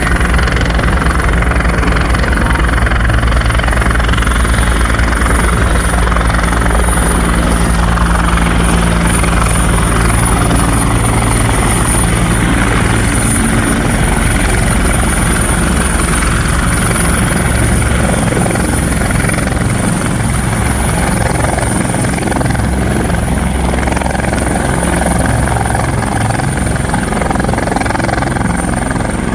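Bell 412EP twin-turbine helicopter running steadily, its rotor noise accompanied by a constant high turbine whine.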